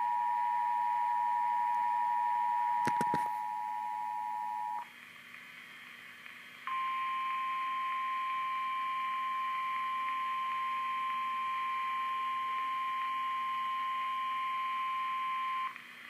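Emergency Alert System two-tone attention signal held steady for about five seconds, with a brief click about three seconds in. After a short gap comes a single steady, slightly higher weather-radio alert tone for about nine seconds, announcing a Special Marine Warning.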